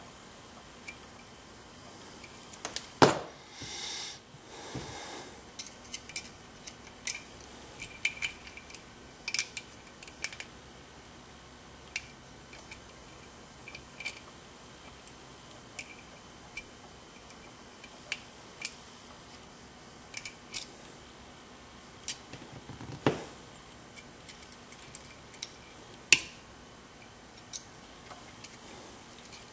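Lock picking on an ASSA Twin cylinder: scattered small clicks and scrapes of a pick and tension wrench working the pins, with a few louder sharp knocks and a brief rustle of handling.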